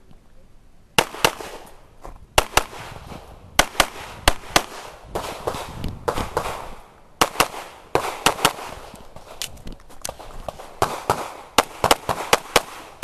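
About twenty pistol shots from a Springfield Armory XD(M) with a red-dot sight, fired mostly in quick pairs of double taps, with short gaps between groups as the shooter moves between targets.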